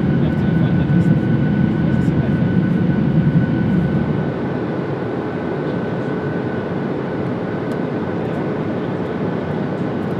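Steady drone of an airliner cabin: a dense rushing hum with a thin steady whine above it, dropping a little in level about four seconds in.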